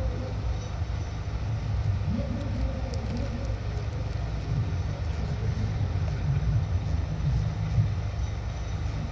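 Hushed outdoor ambience of a crowd keeping a minute's silence: a steady low rumble with no engines and no voices standing out.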